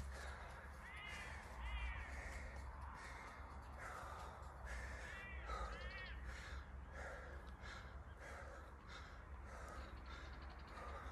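Harsh bird calls in two pairs, about a second in and again about five seconds in, over a steady low rumble.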